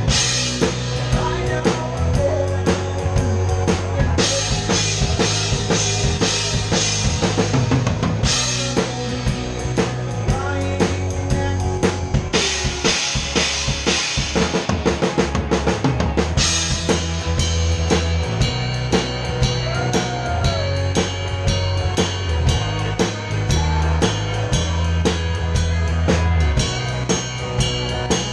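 A live band playing, with the drum kit loudest: kick drum, snare and cymbals driving a steady beat over sustained low bass notes, with stretches of heavy cymbal wash.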